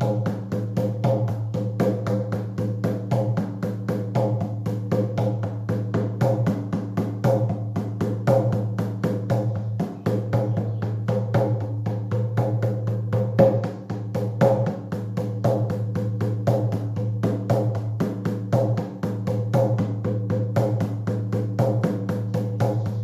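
A drum for a shamanic journey, beaten in a steady, fast, unbroken rhythm of several strokes a second, with its deep ringing tone sustained between the strokes.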